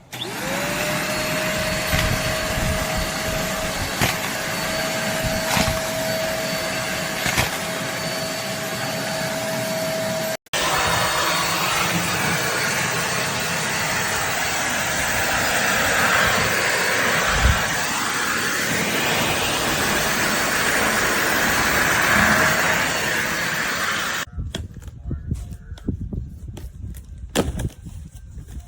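Deerma DX115C handheld stick vacuum cleaner switching on, its motor whine rising quickly to a steady tone over a steady rush of suction. It runs for about twenty-four seconds, with a split-second gap about ten seconds in, then cuts off, leaving a few faint knocks.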